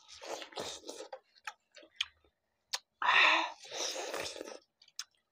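Several people biting and chewing juicy watermelon slices: scattered wet mouth clicks and smacks, with a louder burst about three seconds in.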